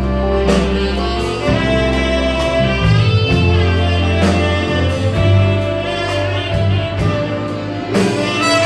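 Church orchestra playing an instrumental piece, with held wind and brass notes over a bass line and a steady drum beat.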